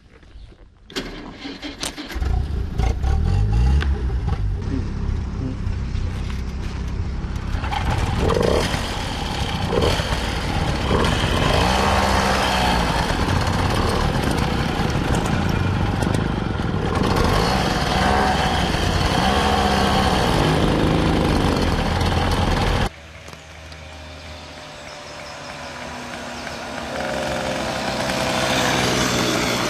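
Moped engines running and revving, their pitch rising and falling. The sound drops suddenly about three-quarters of the way through, and engine noise builds up again near the end.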